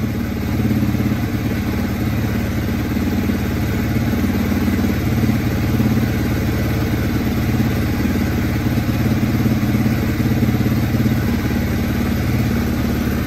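1989 Yamaha TW200's air-cooled single-cylinder four-stroke engine idling steadily, warming up after a cold start.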